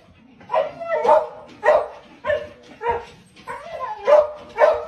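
A dog barking repeatedly, about eight short barks roughly half a second apart.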